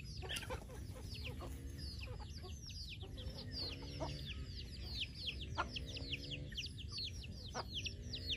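Chicks peeping constantly in quick, high, falling notes, while a mother hen clucks in low, drawn-out calls every second or two.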